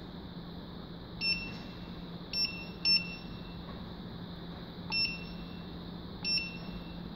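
Front-panel keys of a Maynuo M9716 DC electronic load beeping as they are pressed: five short, identical beeps, each confirming a keypress as the load current is keyed in. A steady hum runs underneath.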